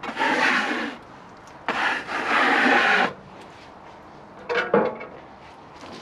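Two long rubbing strokes across the wet, rough-sawn face of a tulip poplar slab as water is spread over it to bring out the grain, then a short knock about four and a half seconds in.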